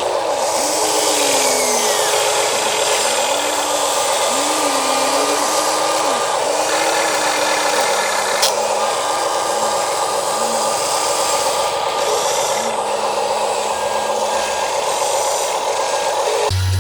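Radio-controlled model excavator's electric motors and plastic gearboxes whirring steadily, their whine rising and falling in pitch as the motors speed up and slow down, with a single sharp click about halfway through.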